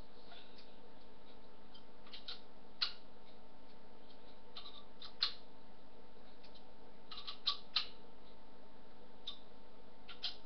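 Scattered sharp clicks, about eight spread unevenly, from the bolts of a stunt scooter's SCS compression clamp being tightened in turn, over a faint steady hum.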